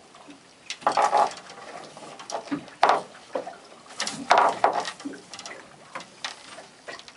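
Irregular knocks and rustles of a freshly caught cod being handled on a fibreglass boat deck, with the loudest bursts about a second in and again around three and four and a half seconds in.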